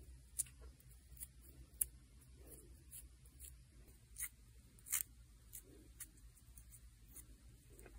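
Faint, scattered light clicks and taps from nails and small nail-art tools being handled, about a dozen at uneven intervals, with a low steady hum underneath.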